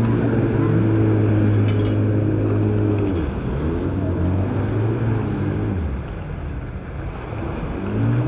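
Jet ski engine held steady at speed, then its pitch falls away twice as the throttle eases, and it rises again near the end.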